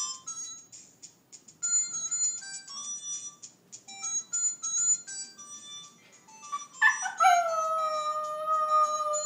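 A cellphone ringtone plays a melody of short, high electronic notes. About seven seconds in, a West Highland White Terrier answers the ringing with one long, loud howl that starts high, slides down and then holds. He howls like this at the phone's ring to call his owner to answer it.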